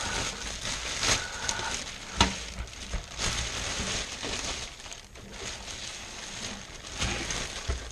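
Clear plastic bag crinkling and rustling as it is handled and pulled off an RC truck, with one sharp crack about two seconds in.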